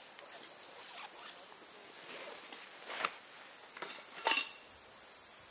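Steady high-pitched insect chirring, with a few short knocks or rustles over it; the loudest knock comes a little over four seconds in.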